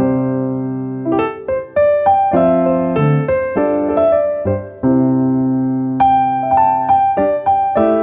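Background piano music: chords and melody notes struck about every half second, each ringing on and fading.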